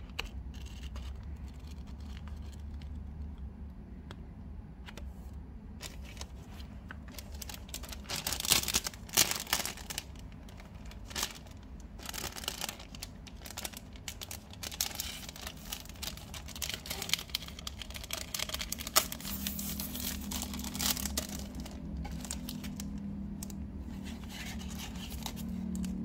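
Clear plastic wrapping crinkling and rustling as hands handle books in their plastic sleeves, with soft handling sounds at first and sharper, louder crackles from about a third of the way in.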